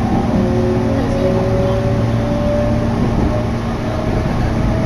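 Meitetsu commuter train running, heard from inside the passenger car: a steady rumble of the ride with a faint motor whine that rises slowly in pitch as the train picks up speed.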